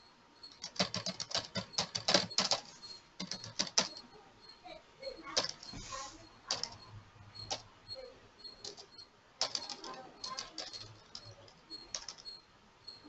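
Computer keyboard typing: quick runs of keystrokes with single clicks between them.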